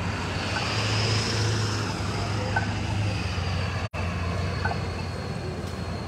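Busy street traffic at an intersection, with a steady low engine hum from vehicles close by and passing-car noise. The sound cuts out for an instant just before four seconds in.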